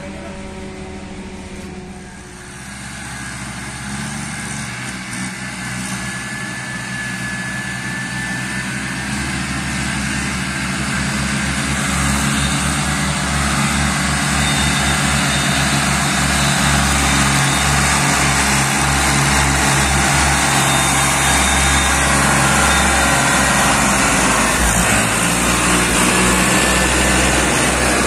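Diesel farm tractor engine running under load as it hauls a heavily loaded sugarcane trolley, steady low pulsing that gets louder over the first half and then holds.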